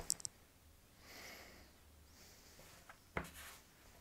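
Quiet handling of a smartphone: two light clicks at the start, a faint rustle about a second in, and a sharper tap a little after three seconds.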